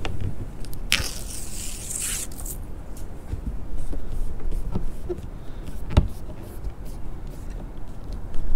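Hands pressing and sliding along a plastic rear-window spoiler stuck onto a car's back glass: a scratchy rubbing scrape about a second in and a sharp tap about six seconds in, over a steady low rumble.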